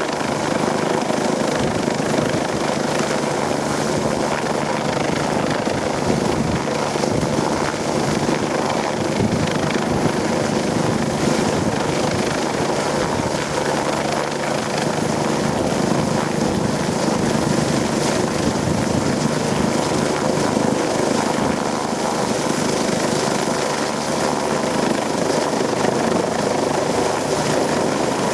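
Helicopter running close by, a steady, unbroken rotor and turbine noise. Its downwash wind is strong enough to be likened to a typhoon.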